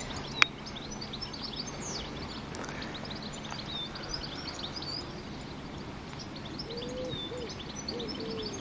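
Small birds chirping and twittering, many short high calls. A few lower, cooing calls come near the end, and one sharp click sounds about half a second in.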